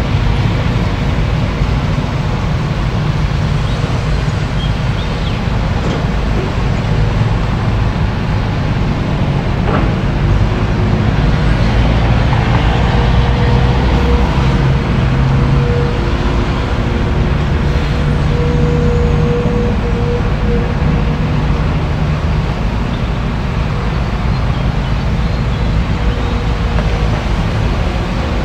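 Caterpillar hydraulic excavator's diesel engine running steadily while working, with a faint steady whine that comes in for several seconds in the middle and again near the end.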